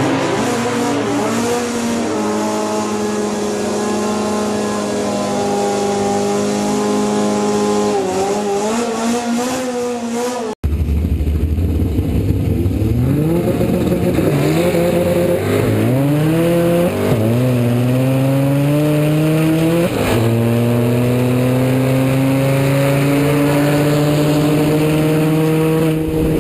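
Car engine running hard at high revs. After an abrupt cut about ten seconds in, it accelerates, its pitch climbing and falling back at each gear change, then climbing steadily near the end.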